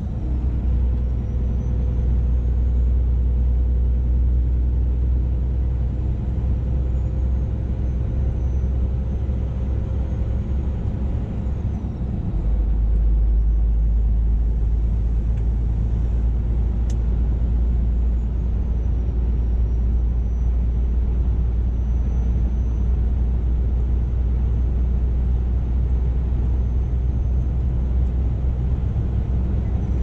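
Scania R440 truck's 13-litre straight-six diesel pulling steadily on the road, a heavy low drone mixed with tyre and road noise, heard inside the cab. About twelve seconds in the level dips briefly, and afterwards the low drone is deeper and stronger.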